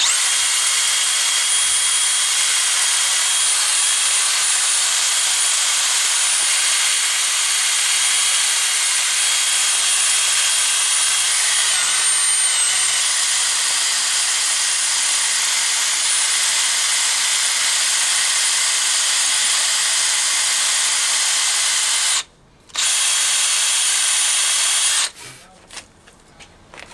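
Cordless drill spinning a wire cup brush against metal, scouring off rust and grime with a steady, harsh hiss and a high whine. The pitch dips briefly about halfway through as it bears down. It stops for a moment near the end, runs again for a few seconds, then cuts off.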